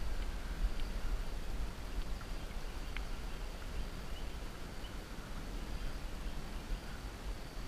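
Steady outdoor ambience of the river's flowing water, with low wind rumble on the microphone and a few faint short chirps.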